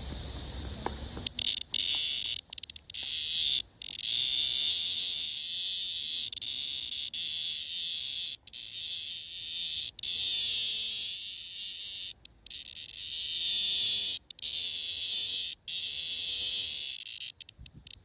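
Male blackish cicada (Cryptotympana atrata) held in the hand, buzzing loudly and high-pitched. It starts about a second in with a few sputtering bursts, then buzzes in long stretches broken by brief pauses, and stops just before the end.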